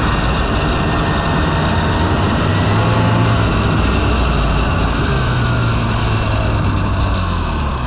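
Polaris 550 snowmobile's two-stroke engine running under throttle as the sled crosses snow, its note rising and easing a little as the throttle changes, under a steady rush of wind and track noise.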